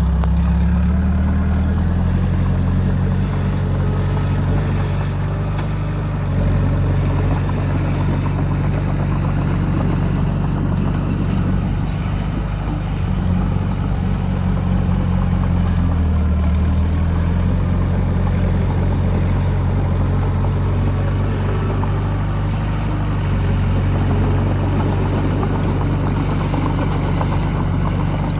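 Diesel engine of heavy earthmoving machinery running steadily, its low note shifting slightly a few times.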